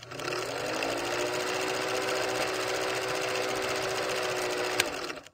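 Old film projector running as a countdown leader plays: a steady mechanical whirring clatter with a low hum, one sharp click near the end, and a sudden cut-off.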